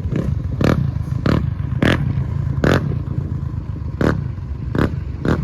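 Yamaha Banshee's two-stroke twin engine running on the move, with sharp clattering hits about every half second to a second.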